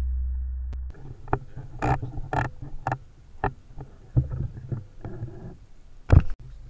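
Handling noise from an air rifle with a scope-mounted camera: a low hum fades and cuts off about a second in, then irregular knocks, clicks and rumble as the gun is moved, with one louder thump near the end.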